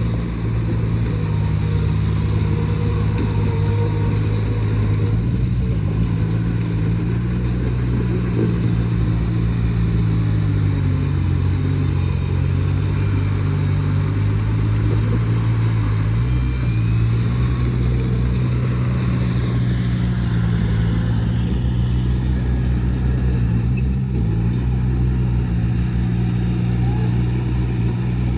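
Heavy diesel engine of earthmoving machinery running steadily under load. Its low note dips and then climbs again about midway through.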